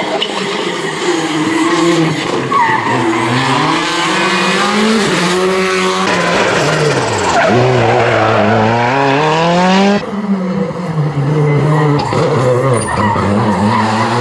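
Rally car engines revving hard, the pitch climbing and dropping through gear changes, with tyre noise. The sound changes abruptly twice, about six and ten seconds in.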